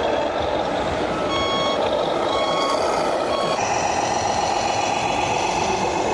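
Reversing beeper of a radio-controlled model truck: three short beeps about a second apart over steady running noise, then a steady pitched hum sets in about halfway through.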